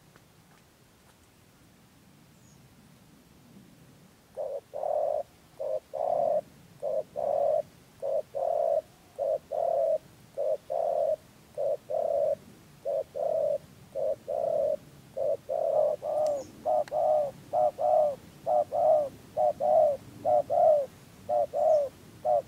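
Spotted dove cooing in a long unbroken run of short coos, about two a second. It starts about four seconds in and grows louder and quicker near the end.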